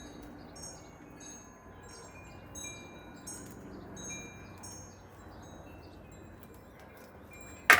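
Wind chimes ringing with irregular light strikes, the tones fading after each one, over a faint steady background. A sharp knock near the end is the loudest sound.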